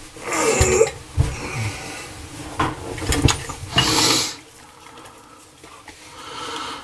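Handling sounds of sink drain parts as pipe joint compound is applied to their threads: short rubbing and scraping strokes with a few light clicks and knocks, the longest scrape a little past the middle.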